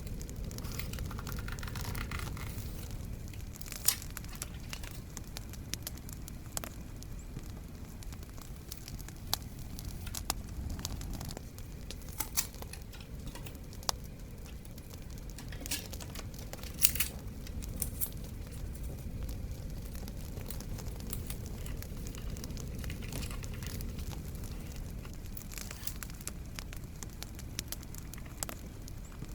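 Paper and stickers being handled, crinkling and torn, over a crackling bonfire with a steady low rumble and scattered sharp pops.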